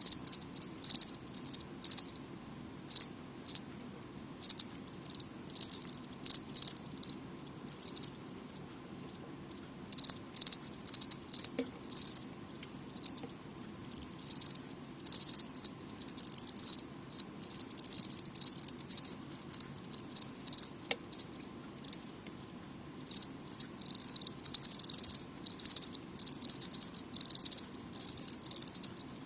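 House crickets chirping loudly: many short, high-pitched chirps in irregular runs, thickest in the middle and near the end, over a faint steady hum.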